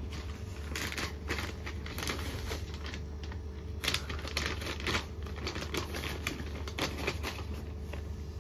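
Stiff paper shopping bag rustling and crackling in irregular bursts as it is handled, opened and a boxed product is pulled out, over a steady low hum.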